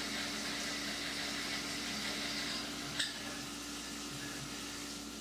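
CNC mill spindle turning an 8-flute high-speed steel chucking reamer at 350 RPM as it feeds down through a bore under flood coolant: a steady hiss of splashing coolant over a low, steady hum, with one short click about three seconds in.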